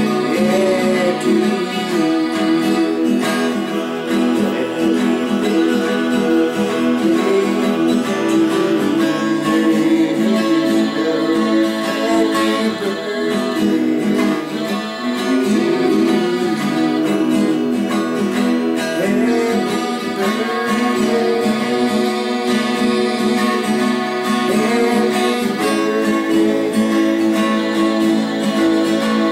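Twelve-string acoustic guitar strummed steadily in chords, with a man's voice singing along in places.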